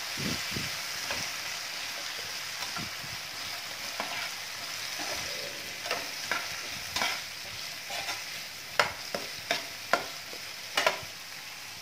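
Spiced potato cubes frying in oil in a kadhai with a steady sizzle, while a spatula stirs them, scraping and clicking against the pan at irregular intervals, more often in the second half.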